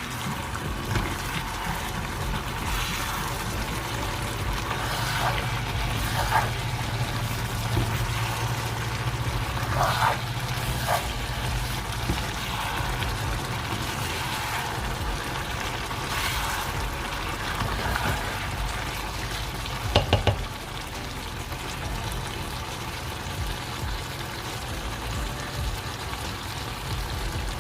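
Pepper and shrimp sauce cooking in a covered pot: a steady bubbling, sizzling hiss, with scattered small clicks and a couple of sharper clinks about ten and twenty seconds in.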